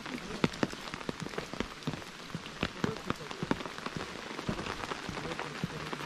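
Rain falling on an umbrella held overhead: a steady hiss of rain with irregular sharp taps of drops striking the canopy.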